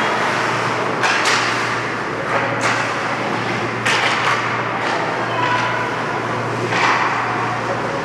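Ice hockey play in an indoor rink: skates scraping the ice and several sharp knocks of sticks and puck, echoing in the arena, over a steady low hum.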